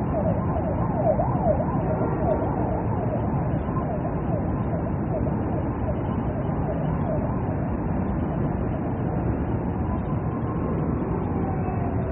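A siren sounding in rapid up-and-down sweeps over a steady rushing noise, the sweeps thinning out after the middle and one slow downward slide in pitch near the end.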